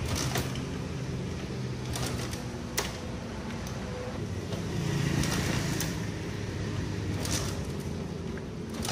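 Honda Win motorcycle engine being kick-started with the throttle open, turning over again and again with mechanical clacks but not firing. The cylinder is flooded: fuel has drained into the combustion chamber and soaked the spark plug.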